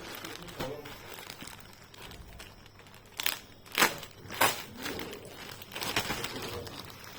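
Packaging rustling and crinkling as it is handled and opened, with a few louder, sharper crinkles around the middle.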